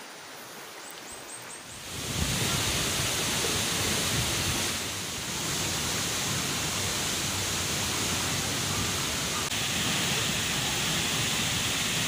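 Rushing water: a rocky stream flowing steadily, then, about two seconds in, the much louder steady rush of a tall waterfall pouring into its pool. A few faint high chirps sound near the start.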